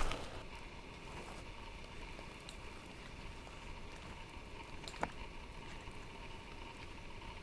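A single footstep on a dirt trail right at the start, then a steady, quiet outdoor background of even noise with a faint steady tone. One sharp click comes about five seconds in.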